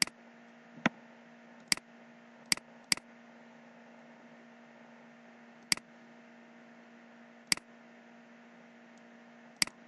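Computer mouse buttons clicking about eight times at uneven intervals, each a single sharp click, over a faint steady hum and hiss.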